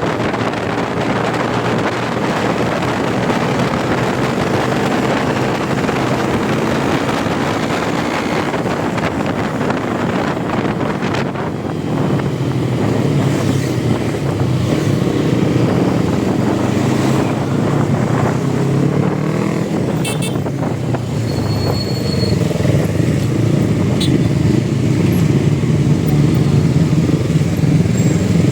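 Motorcycle engine running while riding, its pitch rising and falling with the throttle, under a steady rush of wind noise in the first half.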